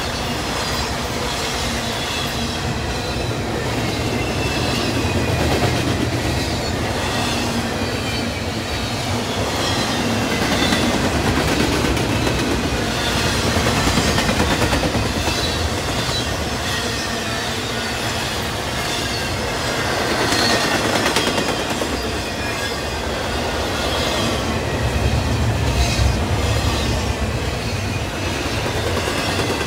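Intermodal freight cars with double-stack containers and trailers rolling past: a steady rumble and clatter of steel wheels on rail that swells every few seconds, with thin high-pitched wheel tones over it.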